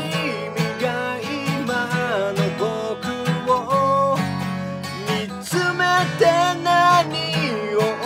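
A man singing while strumming an acoustic guitar, with steady, regular strums under a sung melody.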